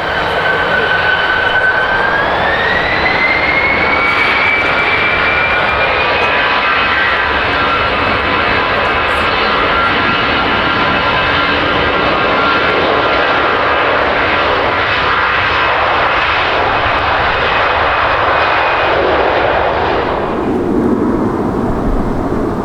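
Jet airliner's engines running loud and close, their whine climbing in pitch about two seconds in and then holding steady as the engines spool up. Near the end the whine fades and a lower rumble takes over.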